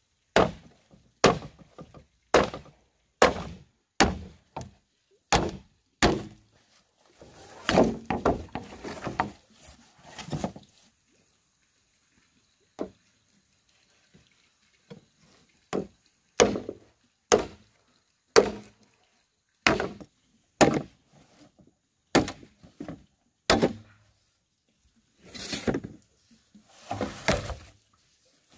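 Machete chopping green bamboo poles: a run of sharp hacks about one a second, stopping for a few seconds midway and then starting again.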